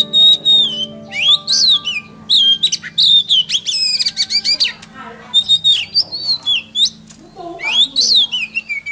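Songbird song, loud whistled phrases of held high notes and quick rising and falling slurs, with a fast run of notes about halfway through, over a soft steady music backing. It is a lure song meant to set a silent magpie-robin singing.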